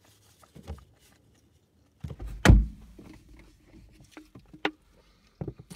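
A single dull thump inside a car cabin about halfway through, followed by faint small clicks and rustles.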